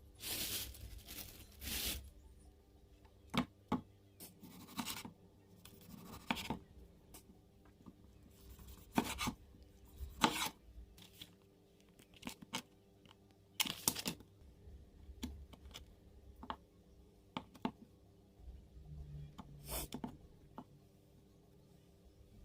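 Irregular scraping and tearing strokes from handwork on a material, short and uneven with pauses between, some sharp.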